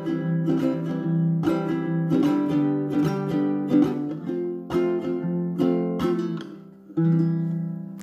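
Baritone ukulele strumming the closing chords of the song, ending on a final chord about seven seconds in that is left to ring.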